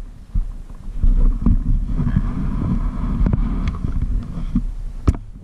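Wind rushing over the microphone with a low rumble as a dirt bike rides a gravel road. Scattered knocks come from bumps, with a sharp knock near the end.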